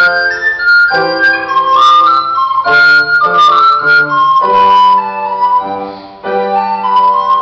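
Recorder playing a moving melody of single notes over piano accompaniment chords.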